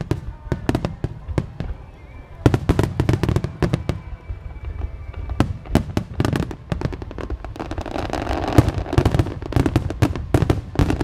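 Starmine fireworks display: rapid volleys of aerial shells bursting with sharp bangs. After a brief lull about two seconds in, the firing grows denser and turns into a continuous crackle near the end.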